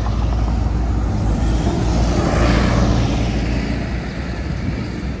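City bus passing close by: a deep engine rumble with a hiss that swells to a peak about halfway through, then fades.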